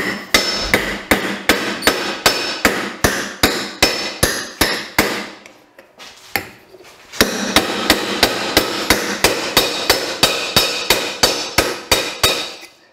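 Hammer pounding a bent metal exhaust tube on the anvil of a bench vise: a quick run of ringing metallic blows at about four a second, with a short lull about halfway through. The blows are forming the tube's end into a D shape to fit the turbo manifold port.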